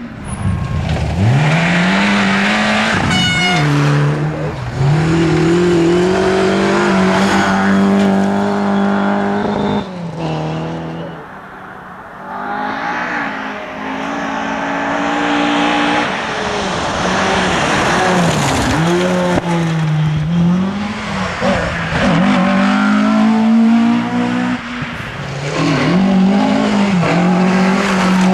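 Ford Escort rally cars driven flat out on a gravel stage: engines revving hard, the pitch climbing and dropping again and again through gear changes and lifts. Around 11 to 13 seconds in the engine sound falls away, then builds again as the next car approaches.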